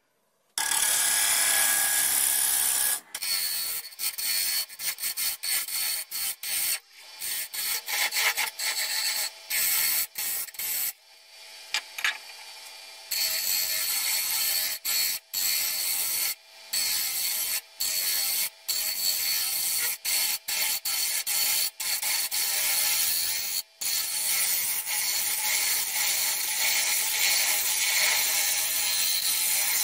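Turning tool cutting a spinning chestnut wood plate blank on a wood lathe: a continuous rough scraping of steel on wood, broken by many short gaps. It eases off to a quieter spell about halfway through, then resumes.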